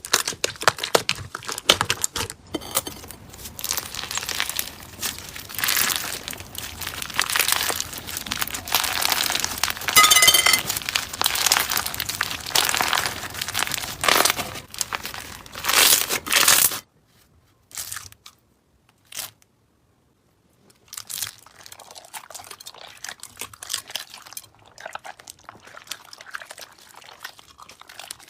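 Crunchy slime being squeezed and pressed by hand, giving dense crackling and crunching. It cuts off suddenly a little over halfway through. After a short gap, quieter crackling starts again.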